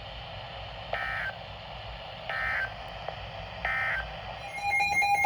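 Emergency Alert System end-of-message signal: three short bursts of warbling digital data tones, about a second and a half apart, marking the end of the flood warning broadcast. Near the end a louder, choppy signal of several steady tones begins.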